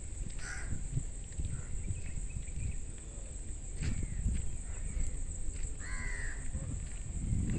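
A bird calling twice, briefly about half a second in and again about six seconds in, over a low rumble of footsteps and phone handling.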